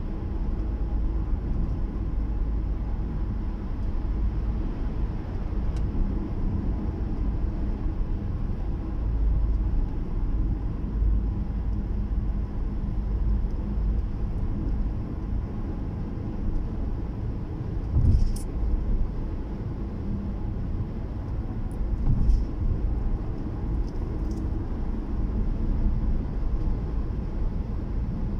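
Steady low rumble of car engine and tyre noise heard from inside the cabin of a car moving at highway speed. A few brief knocks come about two-thirds of the way through.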